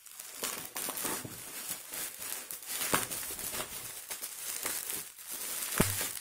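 Bubble wrap crinkling and rustling as it is pulled off a small can by hand, with a few sharper crackles.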